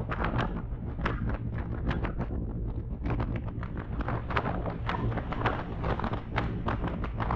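Motorcycle engine running steadily at highway speed, heard through a helmet-mounted GoPro, with wind buffeting the microphone in irregular crackling gusts.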